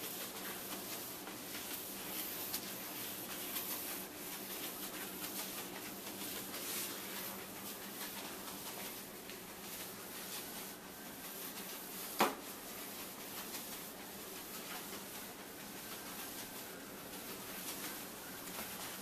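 Sponge mop rubbing and swishing over a wet ceramic tile floor in repeated strokes, with one sharp click about twelve seconds in.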